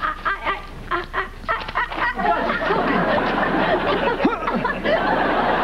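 Several people laughing as a take breaks down: scattered chuckles at first, swelling about two seconds in into a dense, steady wash of laughter.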